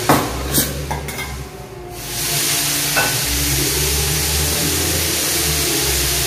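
Food sizzling in a steel frying pan on a gas stove while it is stirred, with a few metal clinks of the lid and spatula in the first second and one more about three seconds in. The steady sizzle swells from about two seconds in.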